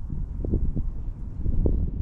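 Wind buffeting the microphone: an uneven low rumble with short gusts, strongest about one and a half seconds in.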